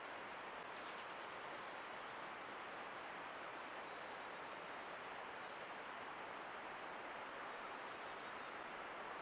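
Creek water flowing with a steady, even rush. A couple of faint high chirps sound over it.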